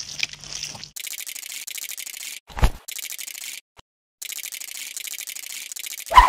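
Rapid, fine high-pitched clicking in two runs of a couple of seconds each, with one sharp knock during the first run. A loud, short pitched sound effect starts at the very end.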